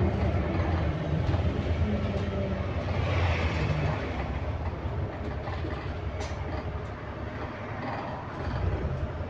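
ADL Enviro400MMC double-decker bus with Voith automatic gearbox, heard from inside while on the move: engine, drivetrain and road noise. A low hum in the drivetrain fades out after about four seconds as the overall sound eases.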